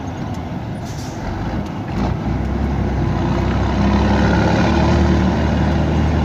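Scania 113 truck's straight-six diesel engine running, heard from inside the cab. There is a short hiss about a second in, and the engine grows louder from about two seconds in and holds steady.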